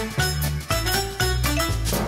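Upbeat background music: a bass line of short notes changing about twice a second, with light percussion.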